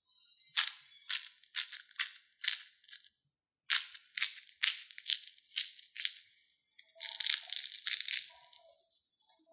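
Crisp crust of a deep-fried potato and corn cake crunching under the fingers: two runs of about six sharp crunches, roughly two a second, then a longer crackling tear as the cake is broken open near the end.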